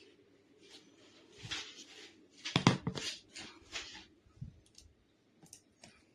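Irregular rustling and knocking of things being handled, with one sharp knock about two and a half seconds in.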